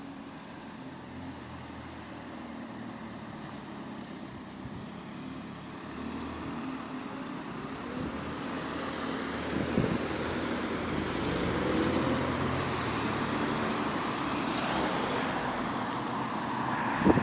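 Bus engine running with a slight exhaust leak, growing steadily louder as the bus draws near, loudest about two-thirds of the way through, then cut off abruptly.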